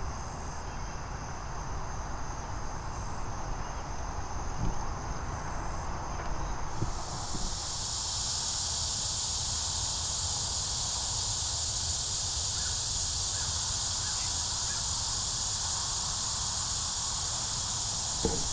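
Outdoor field ambience: insects chirring in steady high tones over a low wind rumble on the microphone. About seven seconds in this changes to a louder, steady high hiss of insect sound.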